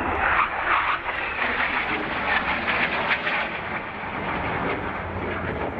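Jet noise from two Northrop F-5E Tiger II fighters flying past in close formation. It is loudest in the first three seconds and eases off a little after.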